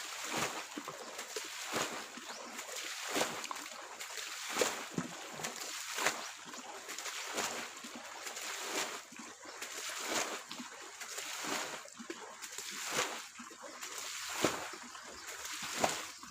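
Water splashing in an even rhythm, about one splash every second and a half, as pond water is scooped up and thrown out by hand to bail the pond dry.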